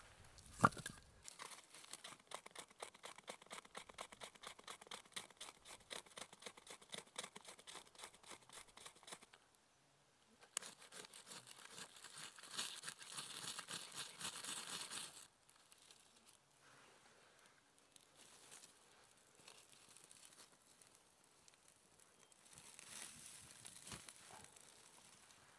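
Split firewood logs dropped with a single knock about half a second in. Then dry tinder of birch bark, dead leaves and pine needles crinkles and crackles as hands tear and bunch it, in long rustling stretches, with dry twigs laid over it near the end.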